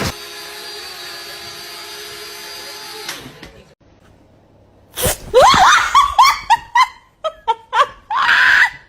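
A steady motor-like whir with a held hum for about three seconds, then it cuts off. After a short pause comes a run of short, rapid bursts of laughter.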